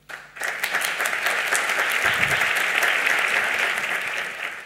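A small audience applauding, starting about half a second in and tapering off near the end.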